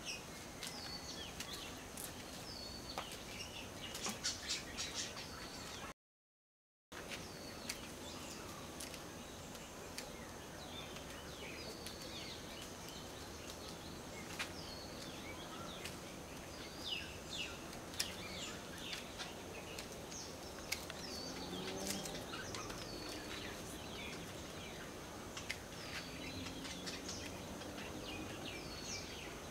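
Small birds chirping in the background, many short falling chirps, with a few sharp clicks from pruning shears snipping the bonsai's shoots. The sound cuts out completely for about a second, around six seconds in.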